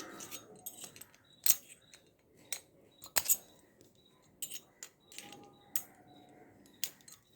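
Small metallic clicks and scrapes at irregular intervals, the loudest about one and a half and three seconds in, as thin fuse wire is wound on and tightened at the screw terminals of a rewireable main-switch fuse carrier.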